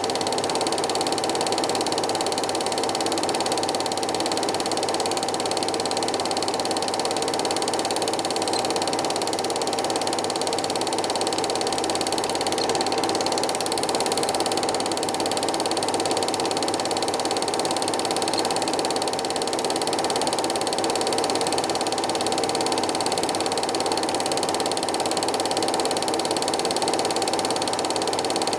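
A cine film projector running: an even mechanical rattle with a constant whine that does not change.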